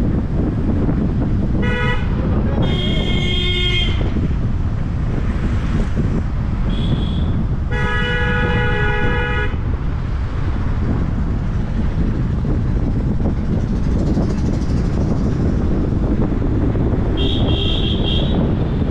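Vehicle horns honking several times: short toots about two and seven seconds in, longer blasts from about three to four seconds and from about eight to nine and a half seconds, and another near the end. Under them runs a steady rumble of road and wind noise from a moving car.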